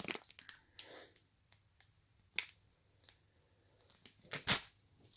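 Snack packaging being handled: a faint rustle, then a few sharp plastic clicks, one about halfway through and a louder pair near the end.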